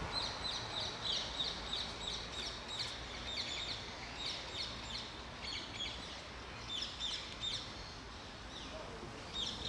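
Small birds chirping: short high notes repeated quickly, about three or four a second, in bouts with a couple of brief pauses.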